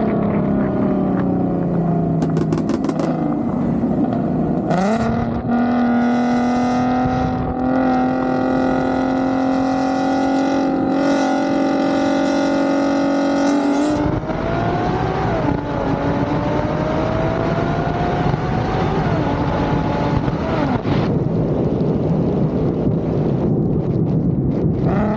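Car engine running hard under acceleration, its pitch climbing, then holding steady. After an abrupt cut about fourteen seconds in, another climb in engine pitch.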